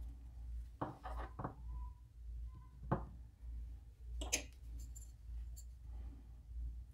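A few light knocks and clicks as a small carved wooden lure body and a putty spreading tool are handled and set down on a wooden workbench, over a low steady hum.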